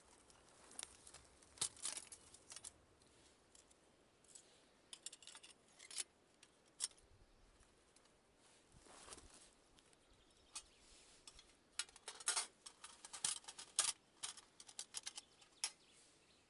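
Firebox Nano folding metal camp stove being unfolded and set up on its tray: irregular light metallic clicks and clinks as the hinged panels are handled, in scattered clusters that come most thickly near the end.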